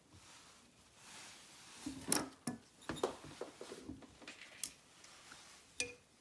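Light metallic clicks and clinks, a handful spread over the seconds, the sharpest about two seconds in, as a small valve keeper is worked into place on a compressed valve spring of a motorcycle cylinder head with a valve spring compressor.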